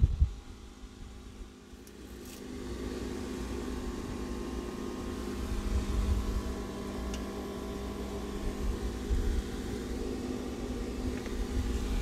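Top-freezer refrigerator running: a steady, fairly quiet motor hum that comes up about two seconds in and holds.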